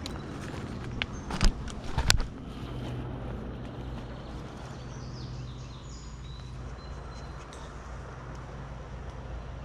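Steady low hum of a motor vehicle's engine, broken by sharp knocks about one and a half and two seconds in, with a few faint high chirps in the middle.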